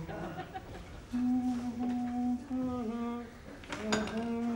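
A man humming a tune to himself in a series of held notes, with a light knock about four seconds in.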